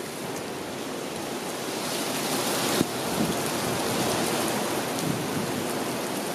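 Wind blowing outdoors: a steady rushing hiss that swells and changes abruptly just under three seconds in.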